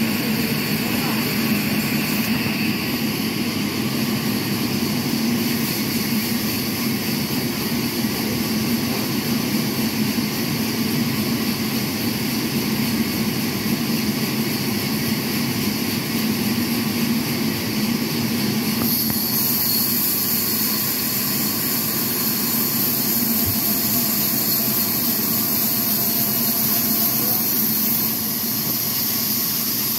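Horizontal band sawmill running, its band blade cutting lengthwise through a large log with a steady hum and hiss; the hiss grows brighter about two-thirds of the way through.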